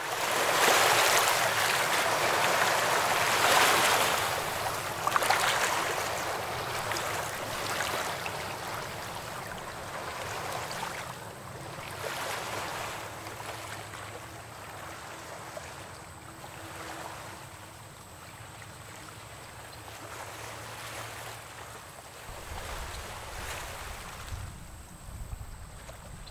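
Water washing against a rocky shore in uneven swells, loudest at the start and easing off, with a low rumble joining near the end.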